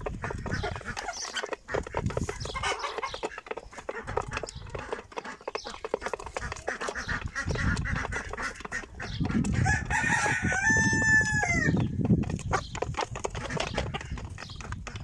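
Flock of Fayoumi chickens clucking while pecking at scattered feed, with many small ticks. About ten seconds in, a rooster crows once, the crow ending in a falling note.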